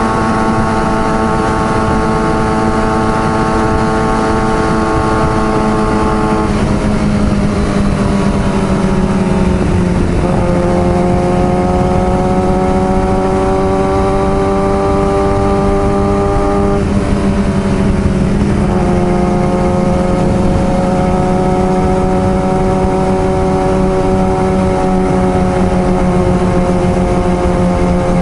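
Kawasaki ZX-6R sport bike's inline-four engine running hard with no pause. The note holds fairly steady, twice falls away for a few seconds and then steps back up, once about ten seconds in and again near two-thirds of the way through.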